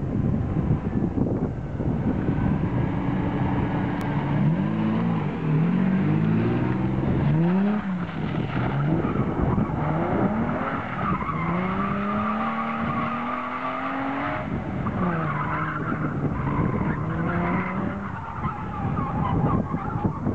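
Ford Sierra drifting on concrete: the engine revs rise and fall again and again as the car slides, with tyres squealing through much of the second half. Wind buffets the microphone.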